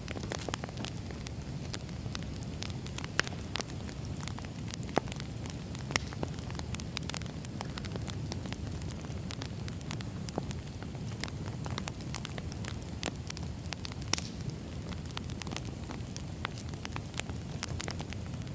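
Wood fire burning: a steady low rumble of flames with frequent irregular crackles and a few sharper pops from the firewood.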